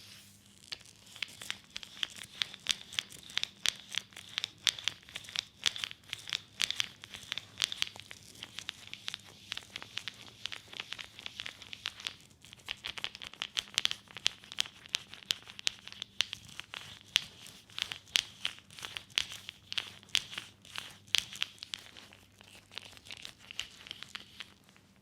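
Hands massaging an oiled leg, a dense run of irregular crackling clicks from skin sliding under oil, with a short lull about halfway through.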